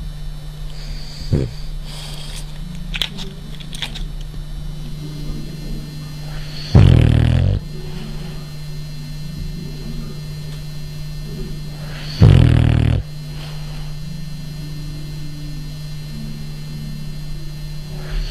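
French bulldog snoring in its sleep: two loud, rough snores about five seconds apart, each lasting under a second.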